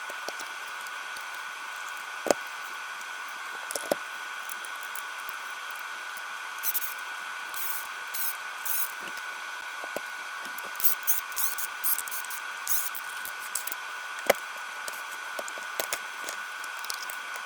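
Battery spot welder fusing nickel strip onto 18650 cells: scattered sharp snaps and short high crackles over a steady high-pitched hum.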